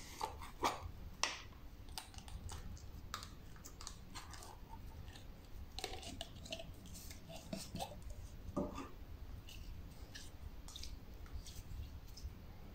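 Slime being squished and pulled by hand, with soft sticky squelches and small clicks and pops at irregular intervals as purple slime is worked out of a plastic jar and pressed into glitter slime.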